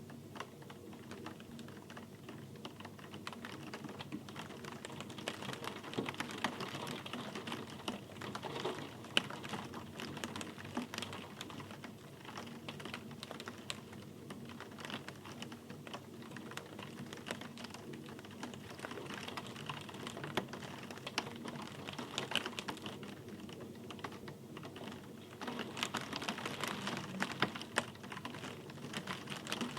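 Rain pattering in a dense crackle of close drop impacts over a soft hiss, swelling a little at times.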